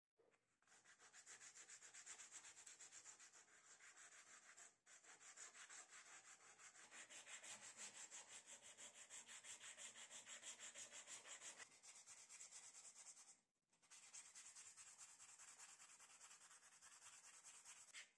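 Sandpaper rubbing back and forth over the wooden handle of a hacksaw in quick, even strokes, sanding the wood, with two short pauses, about five seconds in and about thirteen seconds in.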